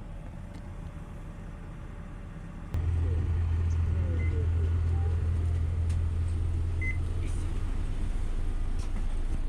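Low, steady engine hum heard from inside a bus. It jumps louder about three seconds in and then holds steady, with a couple of short high beeps later on.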